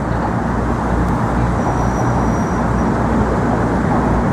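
Steady road traffic from motor vehicles crossing the Brooklyn Bridge: a dense, even rumble with no single vehicle standing out.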